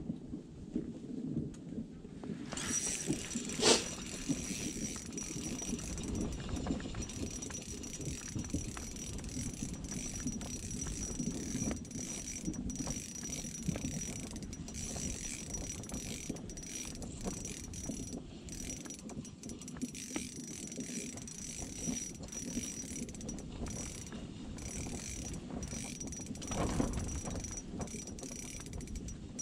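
Spinning reel being cranked, its gears ticking, while a fish is reeled up through the ice. A sharp knock sounds once a few seconds in, over a steady low rumble.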